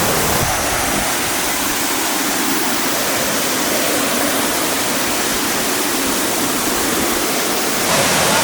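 Large waterfall, the main drop of Kuang Si Falls, giving a steady rush of falling water. It grows a little louder and deeper near the end.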